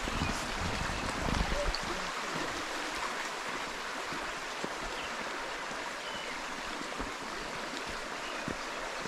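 A shallow mountain creek flowing over rocks, a steady rushing and babbling of water, with some low rumble in the first couple of seconds.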